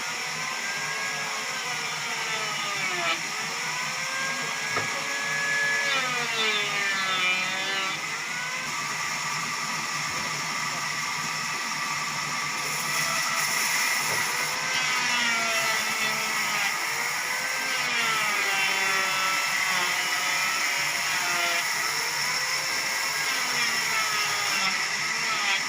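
Sawmill machinery running without a break, a steady high whine with tones that swoop up and down every second or two.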